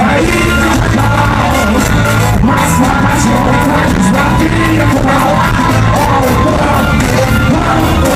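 Rock song playing loud and without a break, the band's introduction before the verses.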